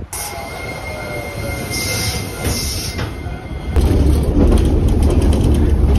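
Electric train wheels squealing on the rails for about three seconds, a thin steady high tone over a fainter falling one. About four seconds in, the loud low rumble of the car running takes over, heard from inside the cabin.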